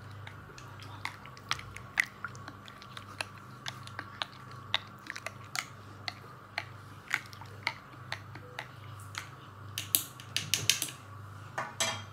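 A metal spoon stirring a thick blended drink in a tall drinking glass, clinking against the glass in irregular taps, with a quicker run of clinks near the end.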